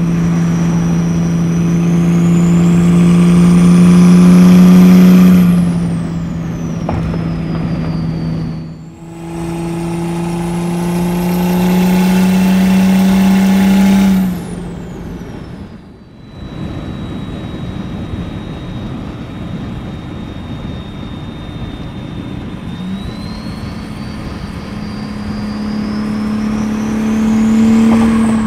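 Mercedes OM606 3.0-litre inline-six diesel with a hood-exit exhaust, heard from inside the cabin, pulling hard under boost: the engine note climbs with a rising high turbo whistle, falls away, pulls up again, settles to a steady cruise, then builds once more near the end.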